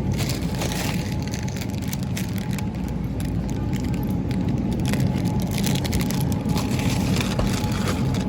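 Crinkling, crackling handling noise, dense and irregular, over a steady low hum of store background.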